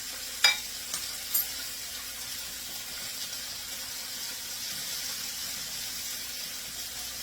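Chicken chunks coated in cornstarch frying in hot oil in a frying pan, a steady sizzle. A sharp click about half a second in, then two lighter clicks within the next second.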